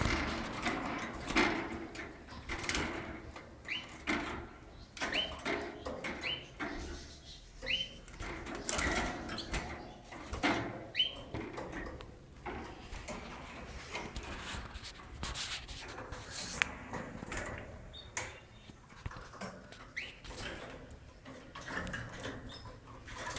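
Canaries chirping with short, scattered rising calls, mixed with clicks and rustling from the cage.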